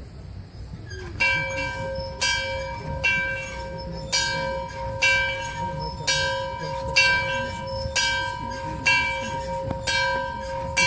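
A large bell rung over and over, starting about a second in and struck roughly once a second, about ten strokes, its deep tone ringing on between strikes.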